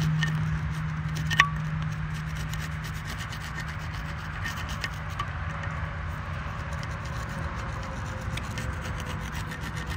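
Steady abrasive rubbing on the rusted iron poor box as it is cleaned, over a low steady hum, with one sharp click about a second and a half in.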